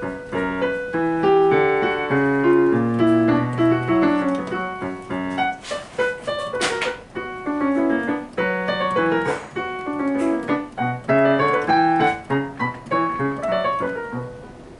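Solo piano playing a lively bourrée, with fast running notes over a moving bass line; a short burst of noise, an added sound effect, cuts in about six to seven seconds in. Near the end the playing stops on a held low note that dies away.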